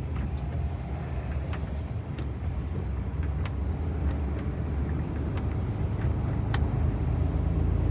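Truck engine running steadily at low road speed, heard inside the cab as a low drone, with a few scattered light clicks.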